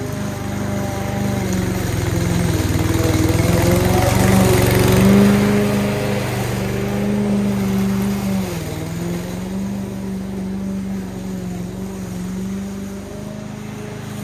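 Masport Contractor push mower's petrol engine running while cutting overgrown grass, growing louder as it comes close about four to five seconds in. Its note dips briefly a little past eight seconds, then steadies again.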